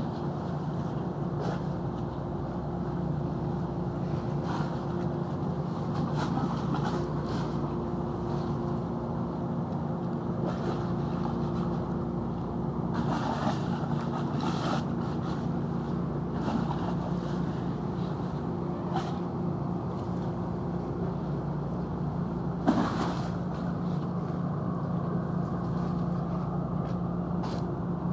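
Large car ferry Sunflower's engines running steadily at berth: a low, even hum with several steady tones. Scattered light clicks, and one sharper knock about three quarters of the way through.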